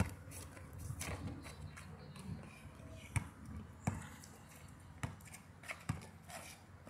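Basketball bouncing on an asphalt court: about half a dozen sharp bounces at uneven intervals, as a player dribbles.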